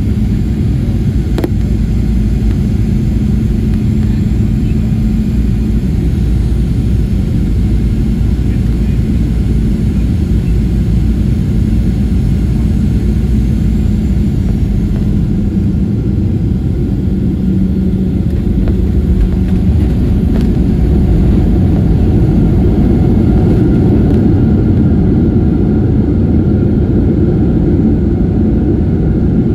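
Cabin noise inside a Southwest Airlines Boeing 737 on final approach and landing, heard from a window seat over the wing: a steady, loud, low rumble of engines and airflow. A single knock comes about two-thirds in, and after it the rumble grows louder as the jet rolls out on the runway with its spoilers up.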